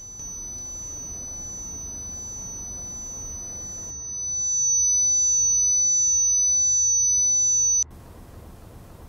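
A steady, high-pitched electronic sine tone, a sound-design ringing effect, over a faint low rumble. About four seconds in it swells louder as a second, lower tone joins it, and it cuts off suddenly near the end.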